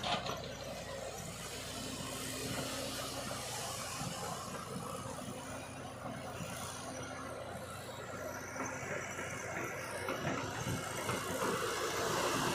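Diesel engines of heavy earthmoving machinery running steadily, growing louder near the end.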